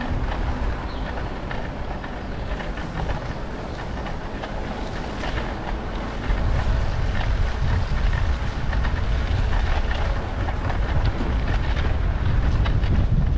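Wind buffeting the microphone of a camera on a moving bicycle: a heavy, steady low rumble with scattered clicks and rattles over it, getting louder about six seconds in.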